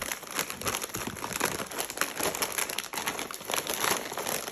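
Plastic packaging crinkling and crackling continuously as a squishy toy is worked out of its bag.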